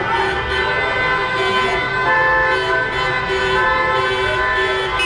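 Several car horns honking at once, long and overlapping as steady tones, over the low rumble of traffic: celebratory honking from a car convoy.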